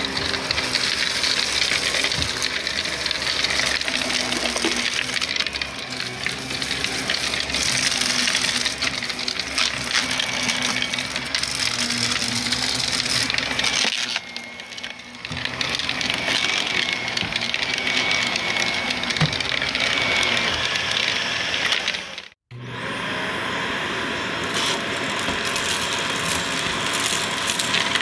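Household vacuum cleaner running and sucking up crunchy debris: crackling and rattling over a steady motor whine. About three-quarters of the way through, the sound cuts out for a moment and a vacuum motor starts up again, its pitch rising as it spins up.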